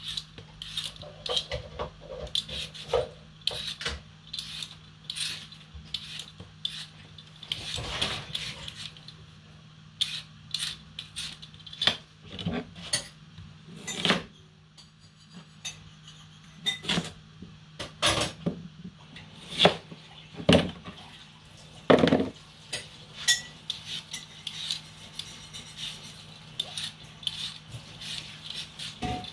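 Potatoes being peeled and cut with a knife on a cutting board: irregular scrapes, taps and knocks of the blade, with peeled pieces dropped into a plastic bowl, over a steady low hum.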